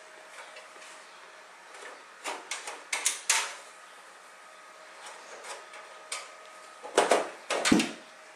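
Side panel of a mid-tower PC case being worked loose and pulled off. A cluster of clicks and knocks comes about two to three seconds in, then a louder clatter of knocks near the end as the panel comes free.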